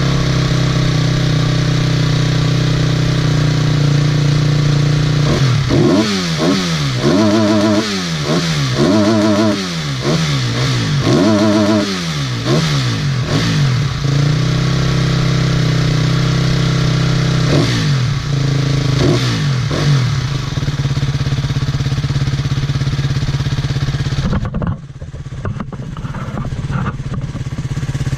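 Husqvarna TE250 enduro motorcycle engine idling, then blipped through a series of quick revs in the middle and a few more a little later. The engine stops about four seconds before the end.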